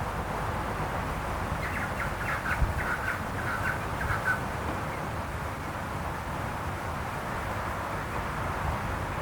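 A bird gives a quick run of about ten short, repeated call notes, starting about a second and a half in and lasting nearly three seconds, over a steady background of hiss and rumble.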